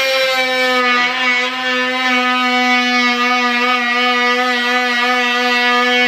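Dremel Multi-Max MM45 oscillating multi-tool running at speed 8 with a round segment saw blade, cutting into pine door casing: a loud, steady buzz with many overtones, holding one pitch.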